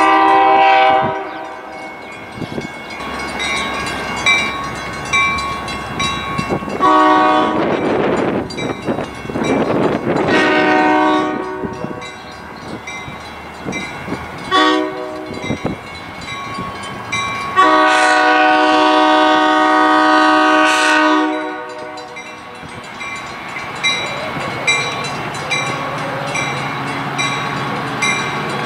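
Metra commuter train's horn blowing a series of blasts for the grade crossing, long at the start, shorter ones between, and a long one from about 18 to 21 seconds in. Crossing bells ding steadily underneath, with the train's rumble as it rolls closer.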